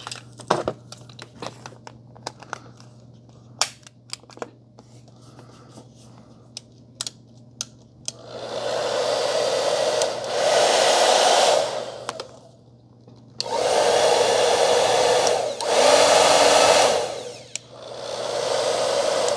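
Several handling clicks, then a handheld hair dryer switched on and blowing with a steady rush of air. It cuts off twice for a second or so and starts again.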